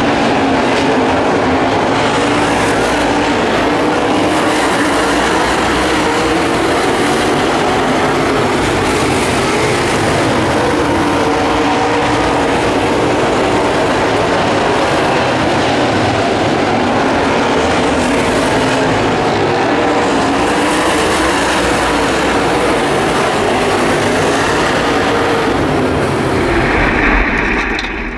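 Several dirt late model stock cars racing around the track, their V8 engines running hard in a steady, loud, continuous din.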